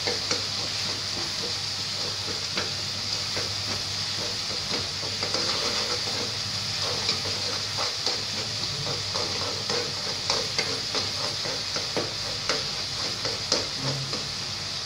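Chopped tomatoes and spices sizzling in hot oil in a kadai, stirred with a metal ladle that scrapes and clicks irregularly against the pan.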